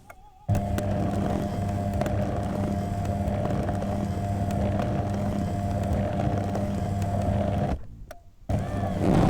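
Foot-kneading massage machine's motor running with a steady hum. It cuts out briefly at the start and again about eight seconds in, each time starting back up. A loud snore begins right at the end.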